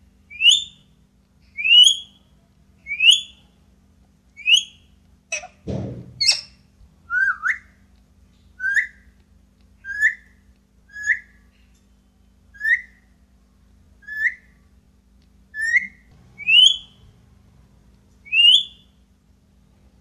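Ringneck parakeet repeating short, rising whistled calls about once every one to one and a half seconds. The first few and last few are higher, the middle ones lower, with one short harsh, rough sound about six seconds in.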